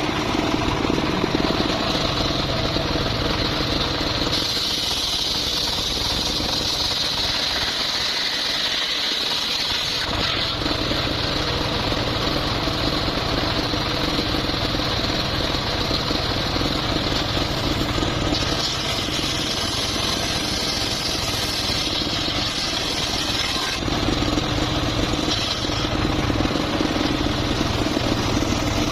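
Circular saw running steadily with its engine, cutting mahogany wood; a high blade whine stands out for a stretch in the first half.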